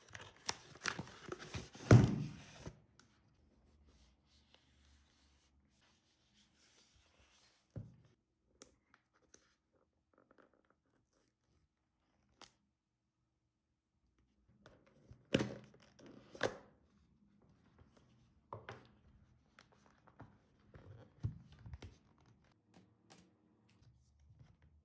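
A cardboard shipping mailer being ripped open, a loud tear in the first couple of seconds. Then quieter handling: the phone box's paper pull-tab seal torn off with short rips about fifteen seconds in, and soft clicks and thunks of the box and lid being handled.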